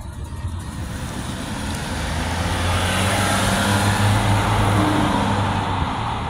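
Cars pulling away on a green light and passing close by: tyre and engine noise swelling to a peak in the middle, with a low engine hum, then easing off near the end.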